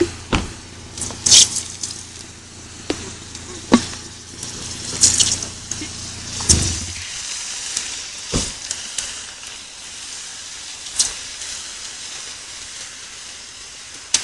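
Burning tyre on a car's wheel hissing and crackling after an extreme burnout, with sharp pops and bangs several times. A car engine idles underneath and stops about seven seconds in.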